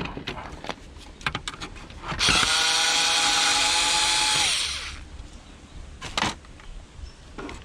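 Power drill running steadily for about two and a half seconds, then winding down as the trigger is released, with knocks and clicks of parts being handled before and after.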